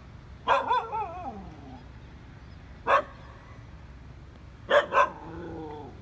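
Dog barking: two quick barks that trail into a wavering, falling whine, then a single sharp bark, then two more barks near the end that trail off into another falling whine.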